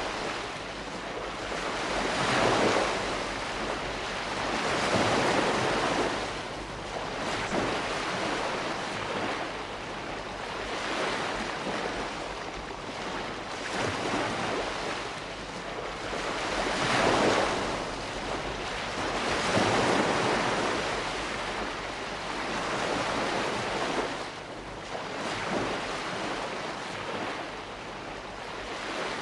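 Calm sea washing ashore: small waves breaking and drawing back, the hiss of water swelling and fading every few seconds.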